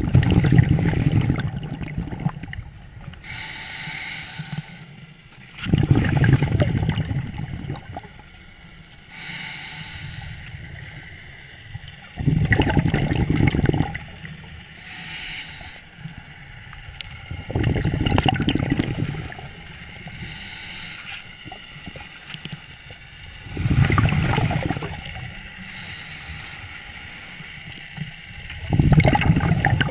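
Scuba diver breathing through a regulator underwater: a loud rush of exhaled bubbles about every six seconds, six times, with the quieter hiss of each inhalation in between.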